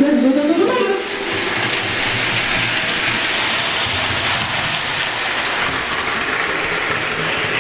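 HO-scale model train running on the track, a steady rushing rumble, while the music from the Bluetooth speaker cuts out about a second in: the speaker's signal breaking up at maximum range.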